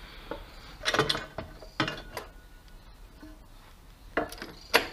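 Metal clicks and knocks as scooter transmission parts and tools are handled: a cluster about a second in, a couple more around two seconds, and two sharper knocks near the end.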